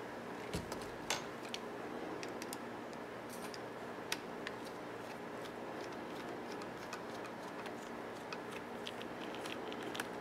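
Scattered small metallic clicks and ticks of a small screwdriver and screws being worked while a cassette deck's direct drive controller board is taken out, the sharpest in the first second and about four seconds in, over a steady background hum.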